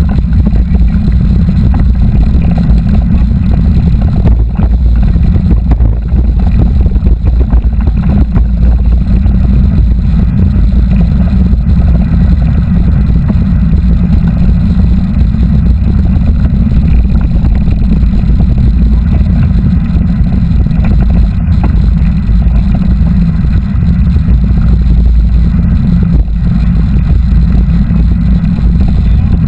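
Loud, steady low rumble of wind buffeting the microphone of a camera riding along on a moving mountain bike.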